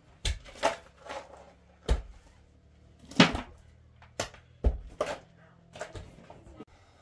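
A run of irregular knocks and clatters of hard objects being handled and set down, about a dozen of them at uneven intervals, the loudest about three seconds in, over a faint low steady hum.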